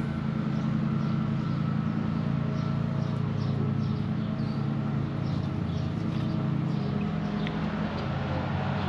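A steady low mechanical hum, with faint short bird chirps scattered over it.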